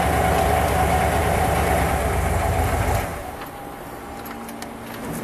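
Oldsmobile 455 big-block V8 idling while the power convertible top lowers, with a steady mid-pitched motor tone over the engine. The engine cuts off abruptly about three seconds in, leaving a few faint clicks.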